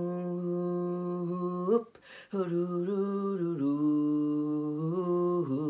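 A man singing unaccompanied, wordless vowels in the yodel-like "whoo-ooh-ooh-doo-di" refrain of a cattle call. He holds one long steady note, breaks for a breath just under two seconds in, then sings a second phrase that steps down in pitch.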